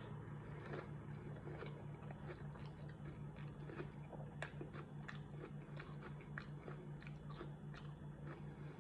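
Close-up chewing of a fried onion cup stuffed with mac and cheese, with irregular crunchy clicks about one or two a second. A steady low hum runs underneath.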